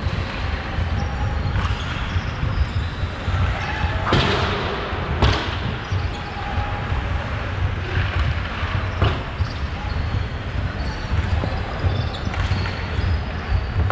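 Hockey skates carving and scraping on rink ice over a steady low rumble and quick dull thumps, with a few louder scrapes about four and five seconds in and again around eight and nine seconds.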